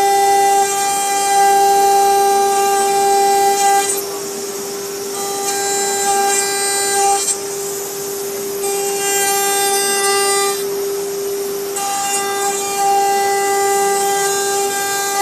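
CNC router spindle whining at a steady high pitch while the bit mills a sheet. About four times a louder, buzzier tone with many overtones comes in for two to four seconds and drops away, as the bit bites into the material and then comes off the cut.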